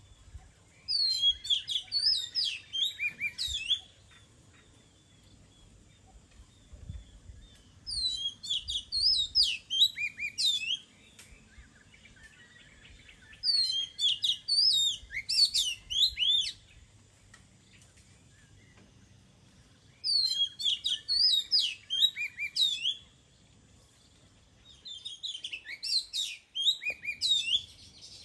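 Oriental magpie-robin singing: five bursts of quick, varied whistled notes, each lasting two to three seconds, with pauses of a few seconds between them.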